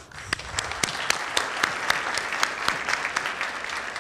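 An audience applauding, with many sharp individual claps standing out. It starts suddenly and eases off near the end.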